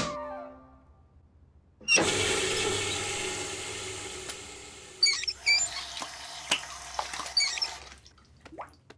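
Cartoon sound effect of rushing water that starts suddenly and slowly dies away, like a flush or a running tap, with a few short squeaks over its second half.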